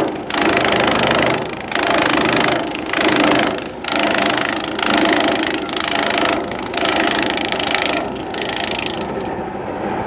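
Engine-driven grass chopper running, a dense clattering noise that swells and dips about once a second. Near the end the high clatter drops away, leaving a lower, steadier running sound.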